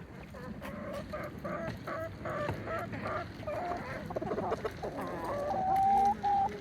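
Sumatra chickens clucking in quick runs of short calls, about three a second. Near the end comes one long, level drawn-out call, the loudest sound.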